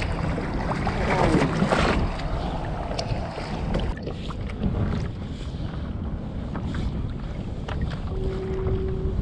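Wind buffeting the microphone and choppy water against a kayak, with the rubbing and clicking of a crab pot rope being hauled in hand over hand, loudest about a second in. A short steady hum sounds near the end.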